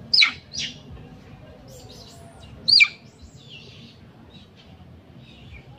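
Birds chirping: loud, high chirps that sweep sharply downward, two near the start and one about halfway through, over fainter scattered chirps.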